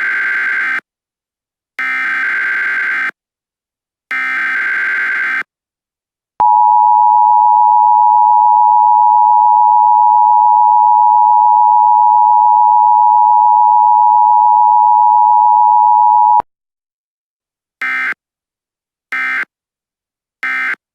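Emergency Alert System signal. It opens with three digital header data bursts, about a second each. Then the steady two-tone attention signal sounds for about ten seconds and cuts off sharply, and three short end-of-message data bursts follow near the end.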